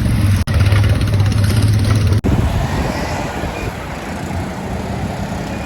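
Road vehicle running, a loud low rumble with road noise. The sound cuts out for a moment twice; after the second break, about two seconds in, the low rumble gives way to a more even road noise.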